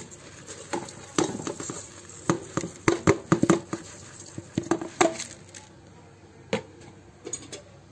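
Washed kalijira rice being added to a multicooker pot and spread over fried quail legs: a quick run of light clicks and pattering that thins out after about five and a half seconds.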